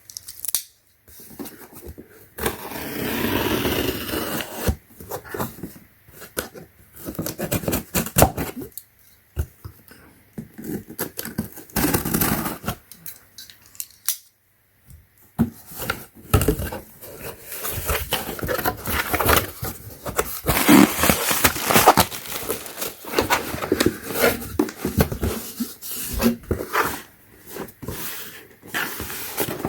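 Unboxing: a cardboard box is opened and its packaging handled, with rustling and many scattered clicks and knocks, broken by a couple of short pauses.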